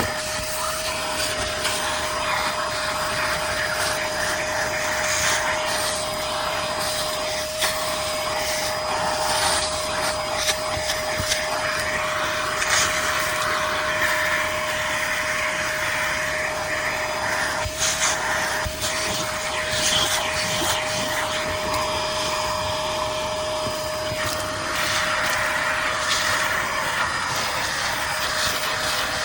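Portable wet/dry vacuum motor running steadily with a constant whine, with a few light knocks scattered through.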